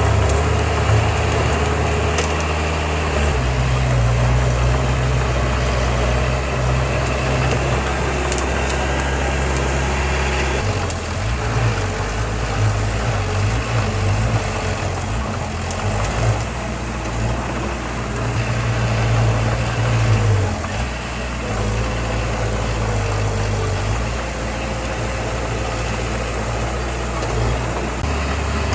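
Heavy diesel engine of earthmoving machinery running steadily, its low hum shifting in pitch a few times as the revs change.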